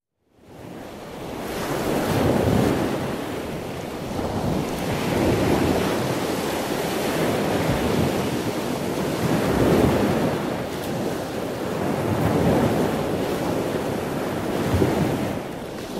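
Sea surf washing in, swelling and easing every few seconds, with wind rumbling on the microphone. It fades in just after the start.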